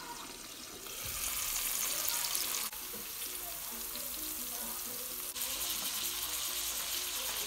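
Chopped onion and then minced meat frying in a pan: a steady sizzling hiss that grows louder about a second in, with the food stirred with a wooden spoon. The sizzle breaks off and resumes sharply twice, at edit cuts.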